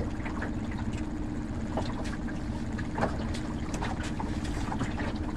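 Small boat's outboard motor running steadily at trolling speed, with wind and water around the hull and a few light clicks.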